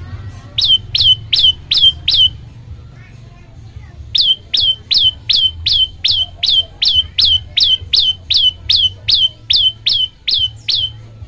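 Prenjak lumut singing a rapid series of sharp, high notes, each falling steeply in pitch, about three a second: five notes, a pause of about two seconds, then a long run of about twenty.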